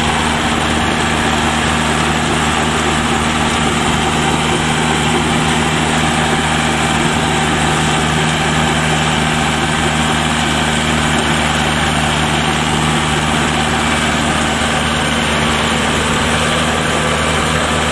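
Shibaura compact tractor's engine running steadily at an even pitch while it drives a rear rotary levee-builder through wet paddy soil.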